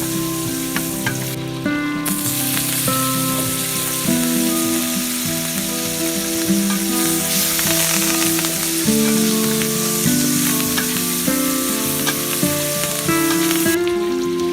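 Food sizzling and frying in a pan as it is stirred, with occasional clicks of the utensil against the pan, over background music with a melody.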